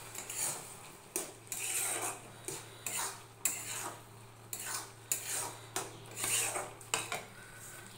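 Spatula scraping around a kadai while stirring thick tarka (moong dal with egg), about a dozen uneven strokes, with a couple of sharper clacks against the pan's side.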